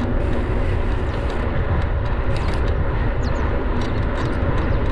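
Wind rushing over the microphone of a mountain biker's camera while riding, with tyre noise and a few small clicks and rattles from the bike.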